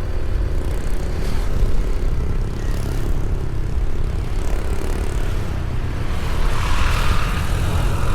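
Steady low rumble of a vehicle on the move, with a brighter hiss swelling about six and a half seconds in.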